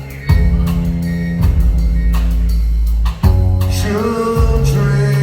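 Live band music: deep sustained bass notes changing every second or so under drum hits, with a voice beginning to sing "True" near the end.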